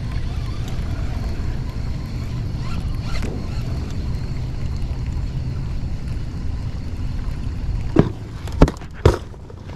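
Steady low rumble of wind and water around a small fishing boat. Near the end come three sharp knocks on the boat.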